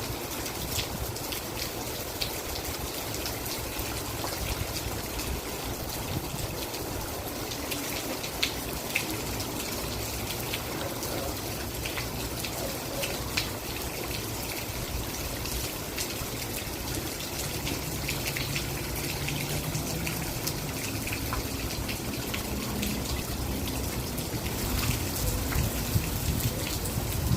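Steady rain falling, with many single drops ticking sharply close by over the constant hiss.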